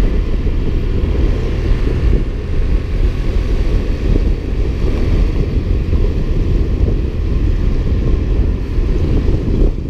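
Wind buffeting the microphone of a moving motor scooter, with the scooter's engine and road noise running steadily underneath.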